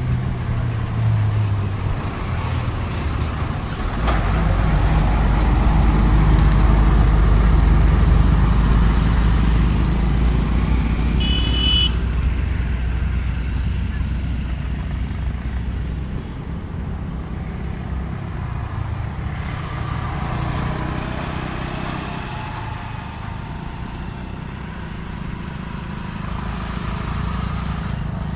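ALCo diesel locomotive engine running under load as it hauls a freight train past, a steady deep throbbing drone. The rumble swells a few seconds in, is loudest soon after, then eases off.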